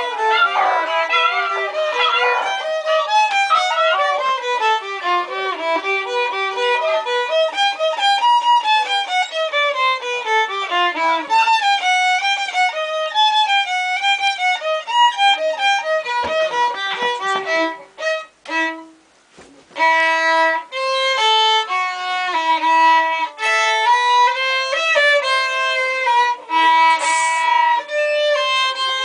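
Violin playing a stepping melody with quick runs of notes, breaking off briefly about two-thirds of the way through before going on. In the first couple of seconds English Springer Spaniel puppies howl along in wavering, sliding cries over the violin.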